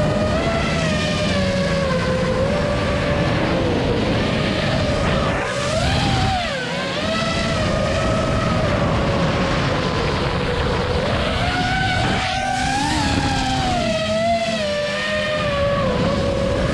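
Five-inch FPV racing quadcopter's motors and propellers (Emax ECO II 2306 1700KV motors, Dalprop Cyclone props) whining, the pitch sliding up and down with throttle changes, with quick surges about six seconds in and again about twelve seconds in.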